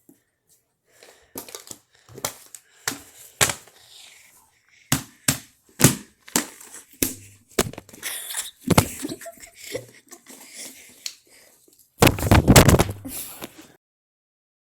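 Silicone push-pop fidget toy being pressed, giving an irregular string of soft pops and clicks. Near the end comes a denser, louder cluster of pops and handling noise that cuts off suddenly.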